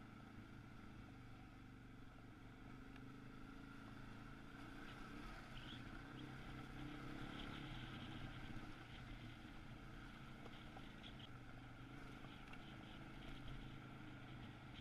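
Dual-sport motorcycle engine running steadily while riding a dirt road, heard faintly, with light crackling of tyres on loose gravel in the middle stretch.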